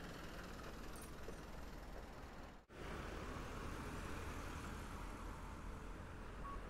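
Steady street traffic noise heard from a moving bicycle, a continuous rumble and hiss of passing vehicles. It cuts out completely for an instant about two and a half seconds in.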